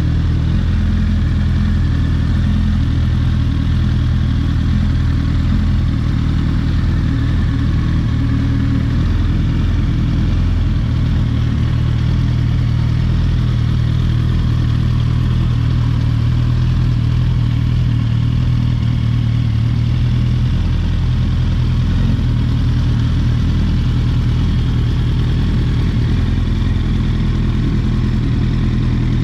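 Yamaha R1 RN19 crossplane inline-four engine in a Raptor quad, idling steadily through its twin exhaust silencers.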